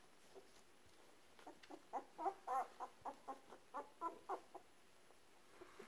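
Two-week-old Brittany puppy whimpering: a quick run of short, high squeaks for about three seconds, starting about a second and a half in.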